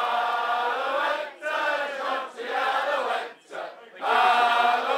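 A group of men singing a song together, in phrases broken by short pauses for breath.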